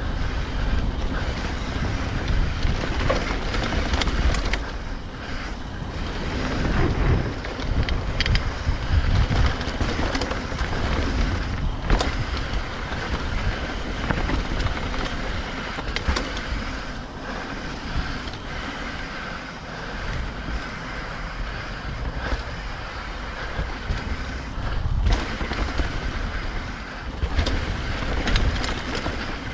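Mountain bike descending a dirt trail. Wind buffets the microphone over the rolling tyres, and a few sharp knocks and rattles come from the bike over bumps.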